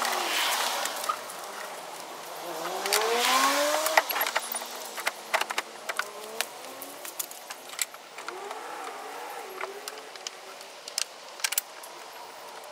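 A vehicle goes by, its engine note rising as it speeds up, which is the loudest part, near the start. After that come many light clicks and clinks of parts and hand tools being handled in a pickup's engine bay during an air intake install.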